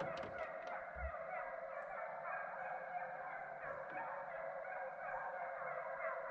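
A pack of deer hounds baying while running a deer's track: a continuous chorus of many overlapping voices. There are a few light clicks in the first second.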